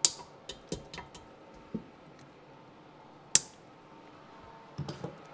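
Hand cutters snipping plastic zip ties: two sharp snaps, one right at the start and one about three and a half seconds in, with lighter clicks and small rattles from handling between and near the end.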